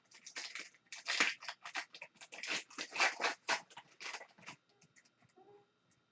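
Crinkling and rustling of a foil trading-card pack being torn open and the cards handled, a quick run of short scratchy strokes that stops about four and a half seconds in.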